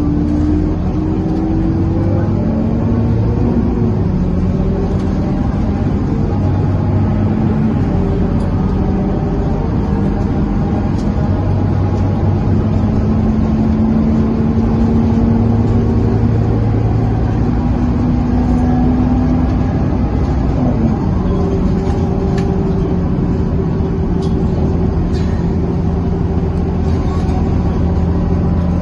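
Scania K230UB bus running on the road, heard from inside the passenger cabin: its five-cylinder diesel engine and the loud, uncommon radiator noise hum steadily. The pitch climbs and drops back several times as the bus speeds up and shifts gear.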